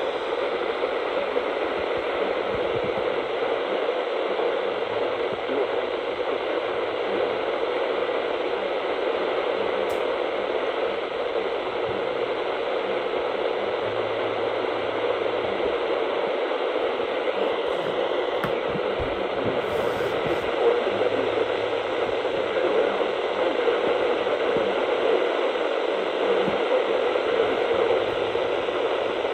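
Steady hiss of radio static from a receiver tuned to a weak NOAA weather-radio channel, with no voice coming through.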